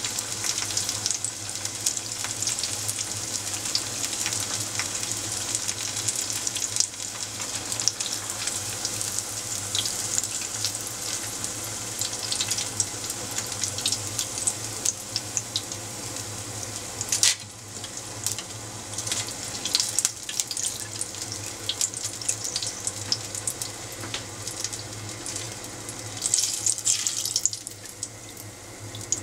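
Tempura eggplant and batter deep-frying in a pot of hot oil: a steady sizzle dotted with many small crackles. A sharp click comes a little past halfway, and after it the sizzle is somewhat quieter.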